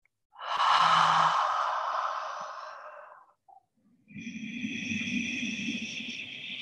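A person's long audible out-breath, a sigh, close to the microphone: it starts suddenly about half a second in and fades away over some two and a half seconds. About a second later another steady, airy breath begins and carries on.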